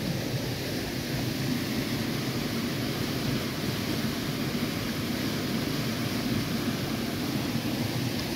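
Shallow stream of water rushing steadily over a pebble bed.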